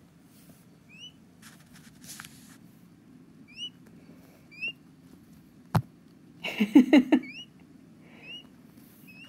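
A week-old peachick peeping: short, high, rising peeps, repeated every second or so. A sharp click comes a little past halfway, followed by a brief, louder burst of low sound.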